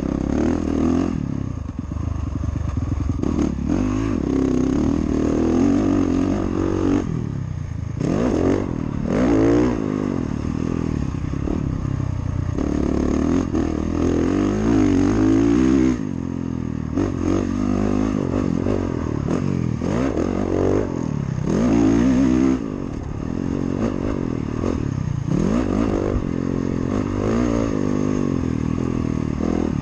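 Honda motocross bike's engine, heard from on board, revving hard while riding the track: its pitch climbs again and again through the gears and falls back when the throttle is shut, with sudden cut-offs about halfway and again a few seconds later.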